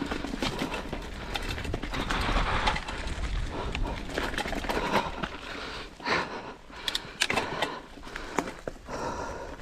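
Mountain bike descending a rough dirt downhill trail: steady tyre noise over the ground with a run of irregular clattering knocks and rattles as the bike hits bumps.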